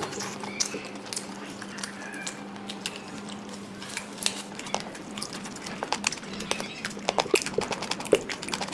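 Close-up eating: chewing with wet mouth smacks and lip clicks as rice and chicken are eaten by hand, with irregular sharp clicks scattered throughout. A low steady hum runs underneath.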